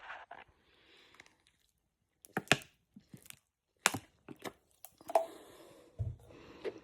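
Scattered short clicks and crinkles of handling noise, with a brief low-pitched sound about six seconds in.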